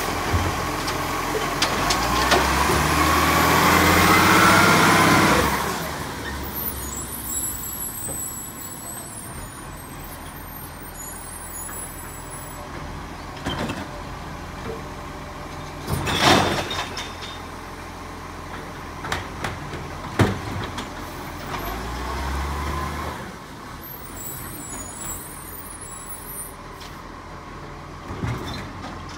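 Side-loader garbage truck working its automated bin arm: the engine revs and a rising hydraulic whine sounds as the arm lifts and tips a wheelie bin for the first several seconds. The truck then runs more quietly as it moves on, with a sharp knock about halfway through and a few smaller knocks later.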